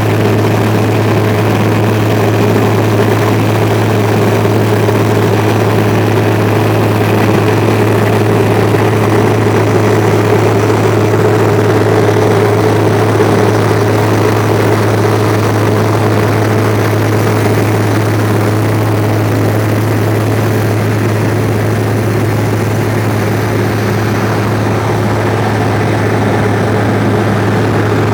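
Heavy diesel engine of road-building machinery running at a steady speed, a constant low hum with no change in pitch.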